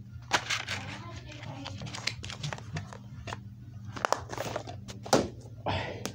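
Plastic DVD case and its paper insert being handled: rustling with several sharp clicks and snaps, the loudest about half a second in and around four and five seconds. A steady low hum runs underneath.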